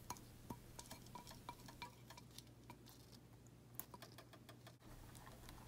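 Faint scattered clicks and small ticks from a saucepan of heating pineapple mixture with a silicone spatula in it, over a low steady hum.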